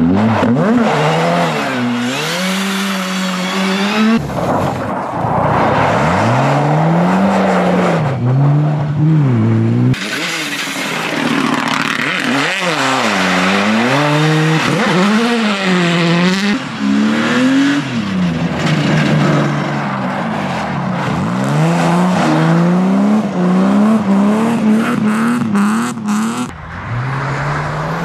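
Rally cars passing close one after another on a snowy stage, their engines revving up and dropping back again and again through gear changes and corners, over a hiss of tyres on snow. The sound cuts abruptly from one car to the next several times.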